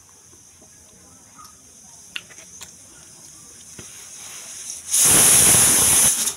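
Pressure cooker venting: a loud burst of steam hissing out past the lifted weight valve for about a second, building briefly before and cutting off sharply. This is the cooker's 'whistle', the sign it has come up to pressure.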